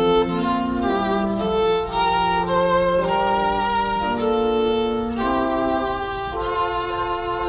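Instrumental music: slow, held notes in several parts moving from chord to chord with no break.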